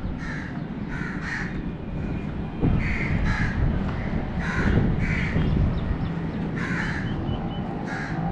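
Crows cawing again and again, a short call every second or so, over a steady low rumble.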